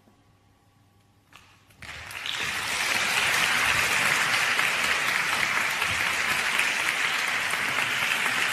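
A short hush of near silence, then audience applause breaks out about two seconds in, swells quickly and holds steady.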